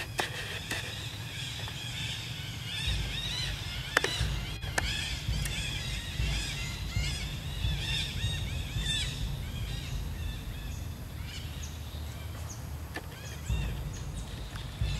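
A dense chorus of small birds chirping, many short, high, arched notes in quick succession that thin out after about ten seconds, over a low rumble of wind on the microphone and a few sharp clicks.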